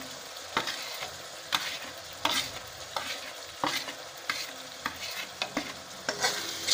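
Onion, garlic and tomato masala sizzling in hot oil in a steel kadhai while a metal ladle stirs it, scraping and knocking against the pan in sharp clicks about once a second.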